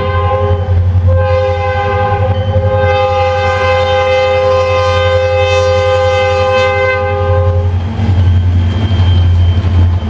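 Canadian Pacific diesel freight locomotive sounding its multi-chime air horn in a long chord blast, with a brief break just under a second in, cutting off about two seconds before the end. The locomotive's diesel engine runs underneath as a steady low rumble that grows louder as it passes close near the end.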